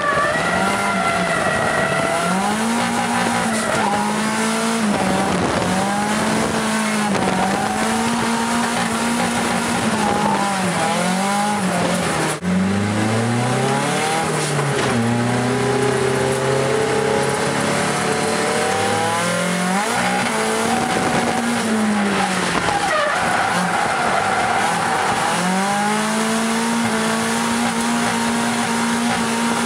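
Nissan SR20DET turbocharged four-cylinder engine in an AE86 Trueno, heard from inside the cabin while drifting, its revs repeatedly climbing, holding high and dropping back every couple of seconds, with tyres squealing.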